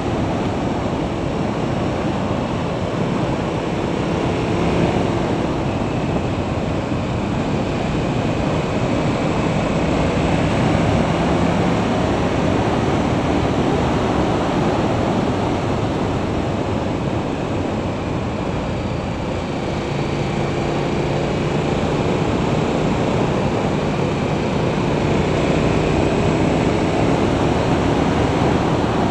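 Motorcycle riding at about 50 mph: steady wind rush over the mounted camera's microphone, with the engine's hum underneath, its pitch drifting up and down a little.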